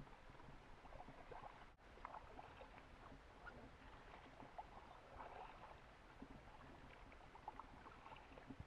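Faint, scattered drips and small splashes of water around an inflatable canoe on calm sea, with a brief dropout about two seconds in.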